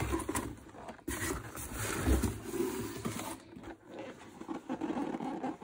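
Cardboard packaging being handled: a boxed figure slid out of a cardboard shipping carton, with scraping and rustling and a dull bump about two seconds in.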